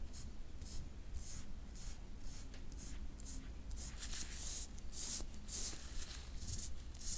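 Metal soft-tissue scraping tool stroked over bare skin in repeated short swishes, about two a second, growing stronger in the second half. This is instrument-assisted scraping of tight back and shoulder muscle.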